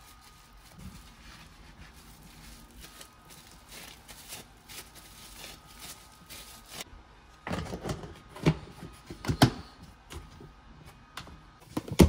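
Objects being handled: soft rustling and light clicks, then a quick run of sharp knocks and clatter about seven and a half seconds in, and one more loud knock at the end.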